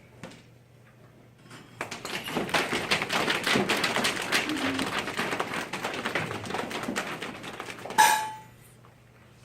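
A haunted-house sound effect: a dense run of quick, irregular taps and clatters lasting about six seconds, ending in one sharp hit with a brief squeak.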